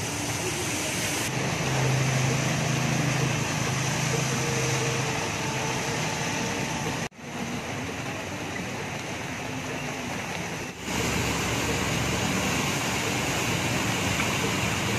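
Street traffic in floodwater: motorcycle engines running as bikes ride through water 20–30 cm deep, over a steady hiss of moving water. An engine hum holds steady for a few seconds about a second in, and the sound changes abruptly twice.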